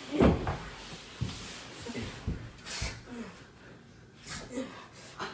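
Breathing and short vocal grunts, mixed with a few dull thumps and rustling movement.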